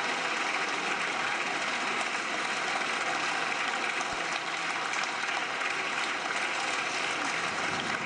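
Sustained applause from a large crowd of parliament members filling the chamber, steady throughout.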